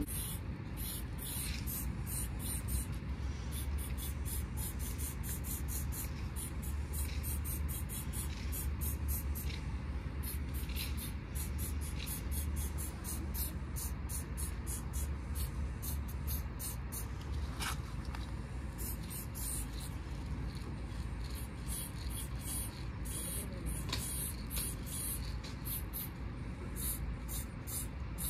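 Aerosol spray paint can giving many short hisses in quick, uneven succession, over a steady low rumble.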